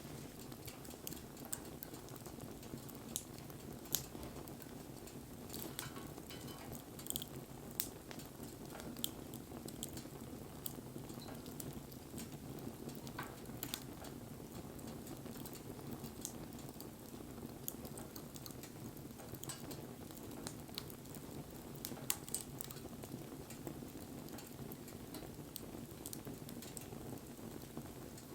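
Wood fire burning: a steady low rush of flames with irregular sharp crackles and pops from the burning wood.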